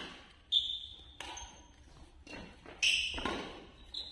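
Badminton rally: a racket strikes a shuttlecock four or five times, about once a second, each sharp hit followed by a brief high ringing tone and a short echo.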